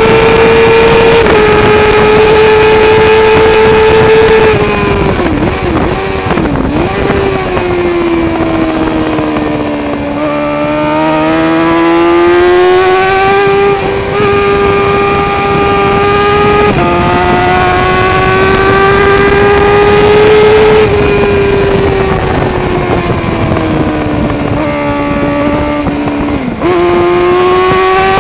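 Kawasaki ZXR400 race bike's inline-four engine with a Pipewerx exhaust can, recorded onboard at speed: a high-revving howl. Its pitch falls twice as the bike slows, climbs again under power and steps at the gear changes.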